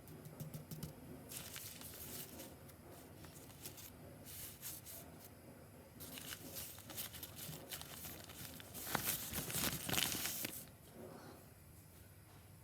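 Rustling and crinkling with a run of short clicks as things are handled, loudest between about nine and ten and a half seconds in.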